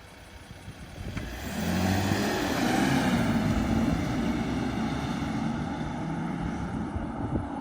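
Freshly rebuilt Mercedes W124 300E-24's M104 3.0-litre 24-valve straight-six pulling under throttle. It swells in loudness about a second and a half in, holds, then slowly eases off.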